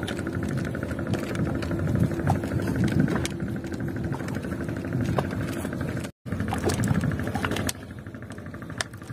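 Boat engine running steadily, with sharp clicks and knocks as the hooked longline is hauled over the wooden side of the boat. The sound drops out for a moment about six seconds in.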